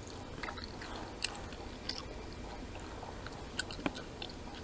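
A person chewing food, with scattered short wet mouth clicks over a low steady hum.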